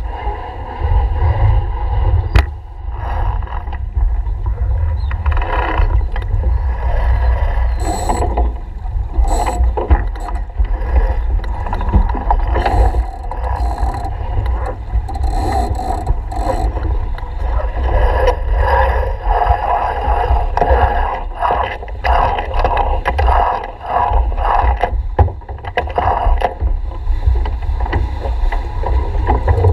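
Wind buffeting the microphone and water along the hull of a keelboat sailing, with irregular knocks, clicks and rattles from the crew handling lines and deck gear as the spinnaker goes up.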